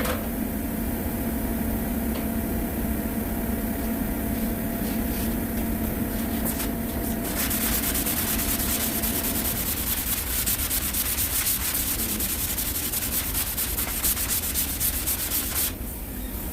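Body filler on a car panel being sanded by hand with a sanding block: quick back-and-forth strokes start about halfway in and stop abruptly shortly before the end. A low steady hum runs under the first half.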